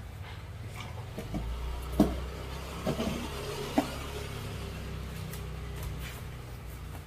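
Three sharp knocks, the loudest about two seconds in, the others close after it, over a low steady rumble.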